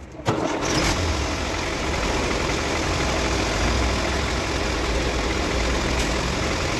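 Massey Ferguson 385 tractor's diesel engine running steadily with a low rumble, coming in abruptly just after the start.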